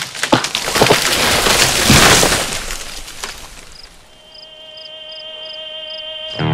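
Film trailer sound effects: a rush of crackling, breaking noise that swells about two seconds in and then dies away, followed by a held tone with faint high pings about three times a second.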